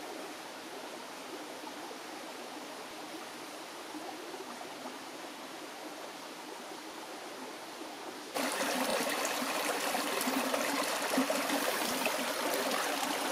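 Small woodland stream running over stones: a steady rush of flowing water, faint at first, then suddenly much louder and closer about eight seconds in.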